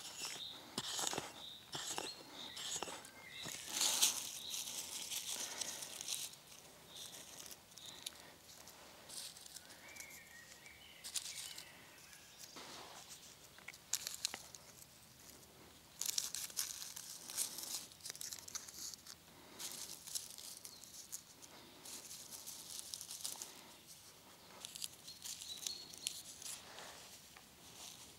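Hands and a small hatchet working loose, dry soil while planting onion sets in a furrow: irregular scraping and rustling of earth, with hands patting and pressing it down.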